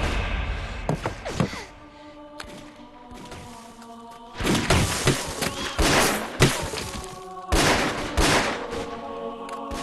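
Battle-scene soundtrack: dramatic background music with loud gunshots and heavy thuds over it. There is a hit about a second in and a cluster of them midway through.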